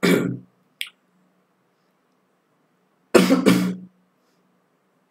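A man coughing: one short cough at the start, then a double cough about three seconds in.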